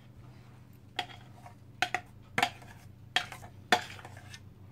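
Stainless steel saucepan clinking and knocking as thick cooked custard is scraped out of it into a springform cake tin: about six sharp metallic knocks at irregular intervals over a low steady hum.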